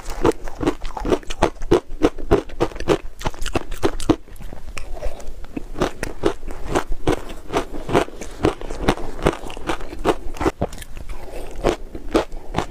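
Close-miked crunching of heavily powdered shaved ice, sweet-potato flavoured, as it is bitten and chewed: a quick run of crisp crunches, several a second.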